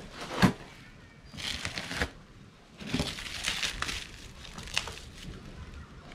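Plastic stretch wrap and bubble wrap being cut and pulled off a cardboard box with a small knife: crinkling and tearing in a couple of bursts, with a sharp crack about half a second in. The wrap is tight and hard to remove.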